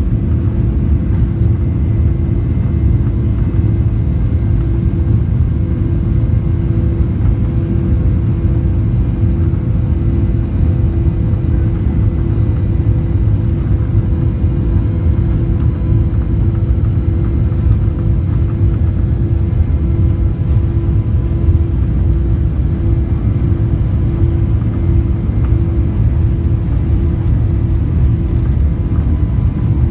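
Steady low rumble of a Boeing 737-800 heard inside the passenger cabin while it taxis: the jet engines at low taxi power and the wheels rolling over the pavement, with a steady hum of a few fixed tones. The level holds even throughout, with no spool-up.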